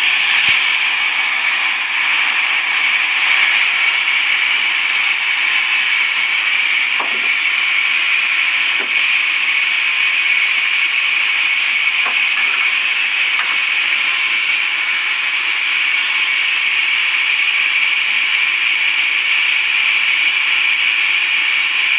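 Sawmill saw cutting through timber: a steady, high hiss with a few faint ticks.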